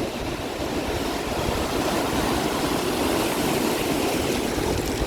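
Large wind-driven swells from Lake Ontario crashing on the shore: a steady rush of surging water and spray that holds for several seconds.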